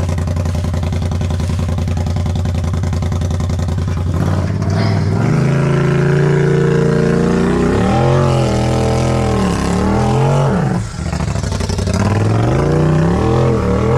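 Polaris RZR side-by-side engine running at a steady idle, then revved up and down again and again from about four seconds in.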